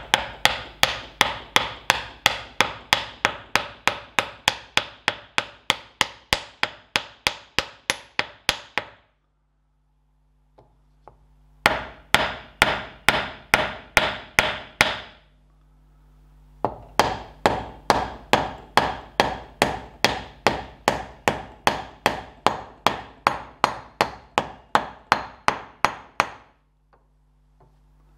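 Hammer striking a stepped metal seal drift in quick, even taps, about four a second, driving an oil seal into a tractor wheel hub. The taps come in three runs with two short pauses.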